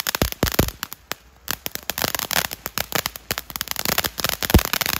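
Ground fountain firework spraying sparks with rapid crackling and popping. There is a brief lull about a second in, then a sharp bang near the end.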